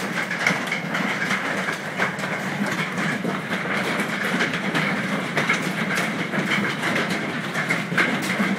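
Heavy hail pelting down: an unbroken clatter of countless hailstones striking hard surfaces, steady in strength.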